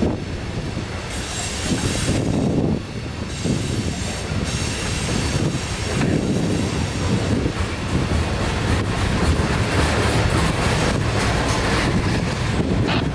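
Loaded freight cars, mostly tank cars, rolling past on a curve: a steady rumble of steel wheels on rail with high-pitched wheel squeal in the first half and a run of clicks from wheels crossing rail joints later on.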